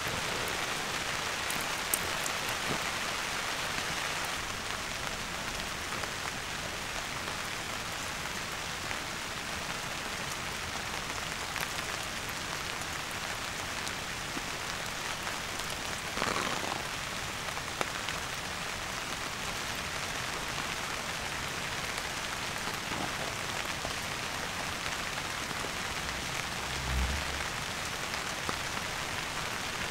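Steady rain falling, with occasional single sharp drops, a brief rustle about halfway and a soft low thump near the end.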